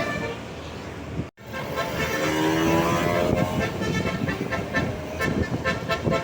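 A bus's basuri horn, a multi-tone musical horn, playing a tune of changing and gliding notes over road traffic. The sound cuts out completely for a moment just over a second in.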